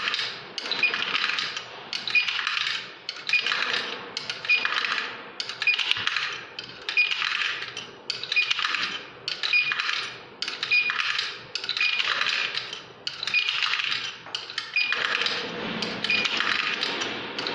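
Coins dropped one after another into a coin-operated washing machine's coin acceptor, each landing with a short metallic jingle, about once a second. The acceptor is in learning mode, being taught to recognise the coin by about fifteen insertions.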